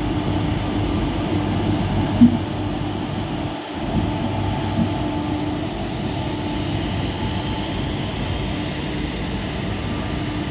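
Electric locomotive and its enclosed car-carrier wagons rolling slowly past at close range: a steady rumble with a constant low hum, and one sharp knock about two seconds in.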